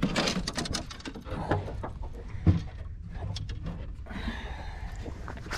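Irregular knocks and clatter on a small fishing boat's deck while a caught trout is handled, with a cluster of sharp knocks at the start, a single knock about halfway and a sharp click at the end.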